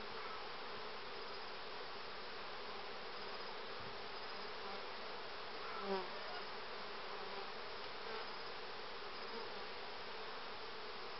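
Honeybees buzzing steadily around an open hive with its frames exposed, an even colony hum, with one short faint sound about six seconds in.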